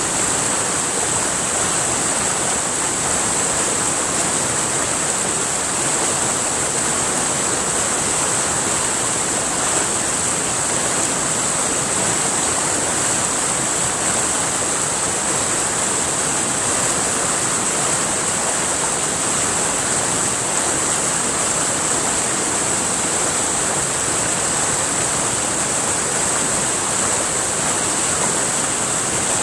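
River water rushing steadily over rocks, a continuous even rush with a bright hiss.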